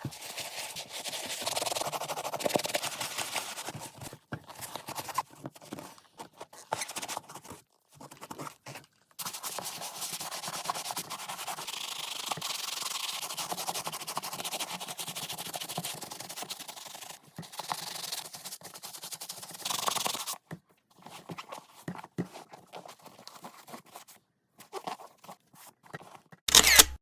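Brush scrubbing a sneaker during cleaning: stretches of a rough rubbing scrub, broken off abruptly several times. A sudden loud burst of noise comes in right at the end.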